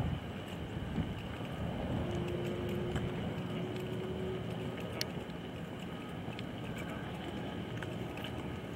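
Steady outdoor background noise, with a faint held hum for about three seconds starting some two seconds in.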